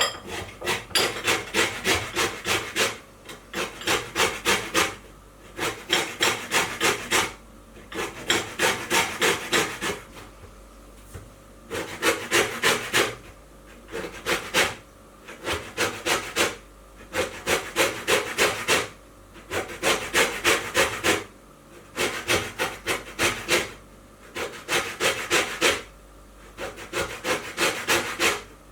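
Lemon rind being grated on a hand grater: rapid rasping strokes, about five a second, in runs of one to three seconds with short pauses between.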